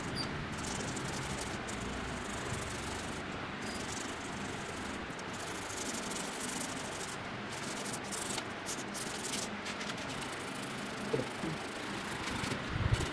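Hand sanding of the filler patched onto a broken racket frame, a steady rubbing that runs on with brief irregular breaks between strokes.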